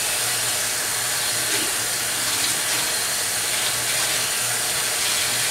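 Warm tap water running steadily from a faucet into a sink, rinsing conditioner out of a bundle of hair extensions.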